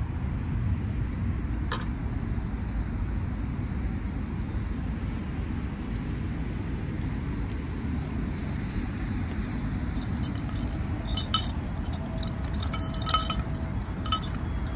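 Metal spoon clinking against a drinking glass, a cluster of sharp ringing clinks about ten to fourteen seconds in, over a steady low rumble.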